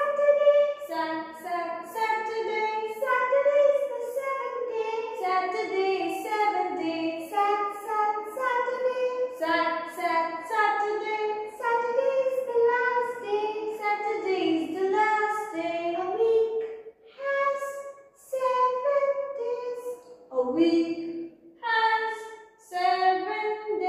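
A high voice singing a children's song in short phrases, with brief pauses between lines about two-thirds of the way through.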